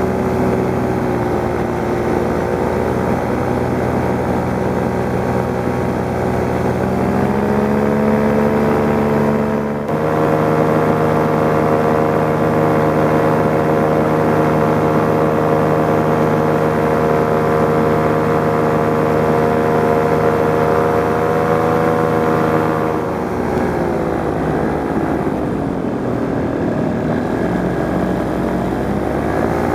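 Paramotor engine and propeller running steadily. The engine speed climbs about seven seconds in and holds, then falls away and picks up again near the end.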